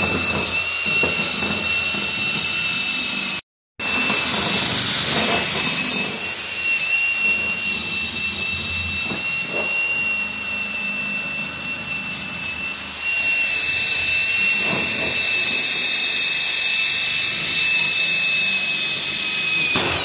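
Cordless drill spinning a wire wheel brush against a rusty steel gear to clean it: a steady high motor whine with the hiss of the wire bristles scrubbing metal. It cuts out for a moment about three and a half seconds in and stops abruptly at the end.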